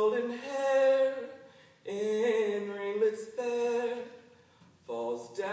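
A man singing unaccompanied in sean-nós style, holding long notes with small ornamental bends in pitch. The song comes in short phrases broken by brief pauses, a new phrase starting about two seconds in and another near the end.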